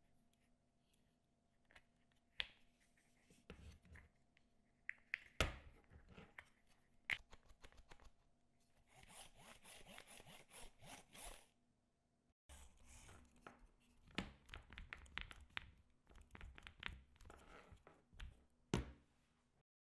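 Quiet workbench handling noises: scattered clicks and knocks, as of small plastic parts, with a few seconds of rubbing or scraping near the middle.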